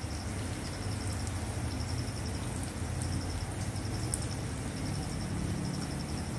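Sliced red onions frying gently in oil in a pan, a soft steady sizzle over a low hum. Across it runs a high, rapidly pulsed chirping in short trains about once a second.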